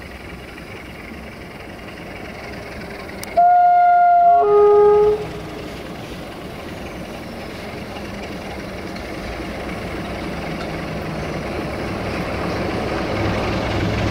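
LDE2100 (060-DA) diesel-electric locomotive approaching with a freight train, its engine and wheel rumble growing steadily louder. About three and a half seconds in it sounds its horn: a high note for about a second, then a lower note for under a second.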